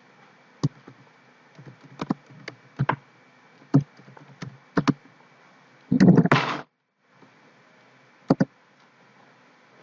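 Computer keyboard keystrokes, single scattered taps at an uneven pace with pauses between them. About six seconds in, a louder dull thud lasts about half a second.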